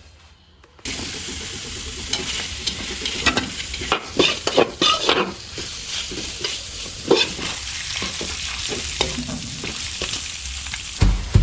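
Pork filling sizzling as it is stir-fried in a hot pan, with the stirring utensil scraping and knocking against the pan in irregular strokes. The sizzle starts abruptly about a second in.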